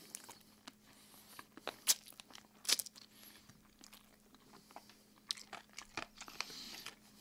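Close-miked mukbang-style chewing and lip-smacking on oven-roasted chicken, with short sharp clicks and smacks scattered through, the loudest about two seconds in and again just before three seconds.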